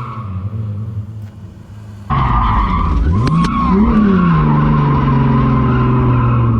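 Drift car engine revving while the tyres squeal in a slide. About two seconds in the sound jumps louder: the revs sweep up and drop back, then hold steady, with the tyre squeal running on over them.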